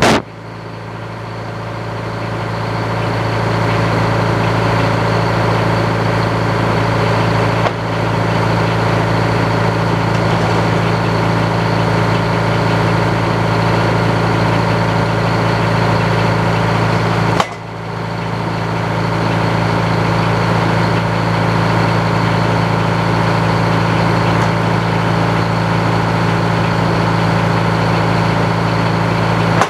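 An old circular sawmill running: a steady engine drone with the saw's broad whirring noise over it. The sound drops sharply twice, about 8 and 17 seconds in, and builds back up over a few seconds.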